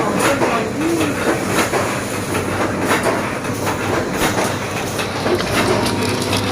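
Liquid dish-soap packing machine running, with a continuous mechanical clatter of many rapid clicks and knocks.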